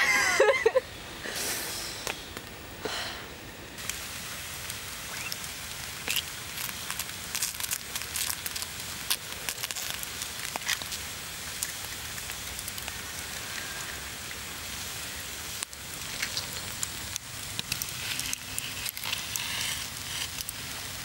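A short laugh, then a Swedish torch fire (an upright split log burning from the inside) crackling steadily, with a constant hiss and many small pops.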